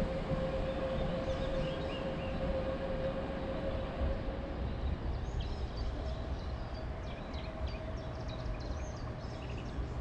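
A narrow-gauge diesel locomotive running in the distance as it moves away, with a steady whine over a low rumble; the whine fades after a few seconds and a fainter one returns. Birds chirp in the second half.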